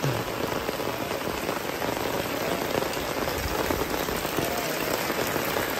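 Heavy rain pouring down steadily, an even hiss.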